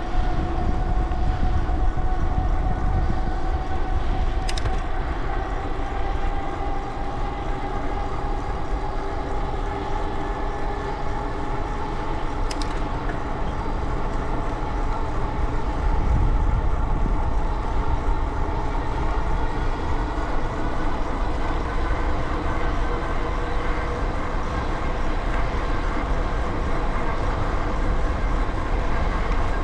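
Steady whine that slowly rises in pitch over heavy wind rumble, the running noise of a fast ride. Two sharp clicks, one about four seconds in and one about twelve seconds in.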